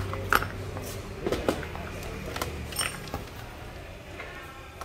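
A few separate clicks and knocks as metal power tools are handled and set down, with a low hum fading out in the first half second.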